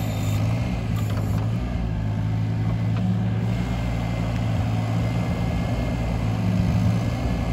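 Cat 302 mini excavator's diesel engine running steadily with a constant low drone while the hydraulics move the arm and tiltrotator bucket.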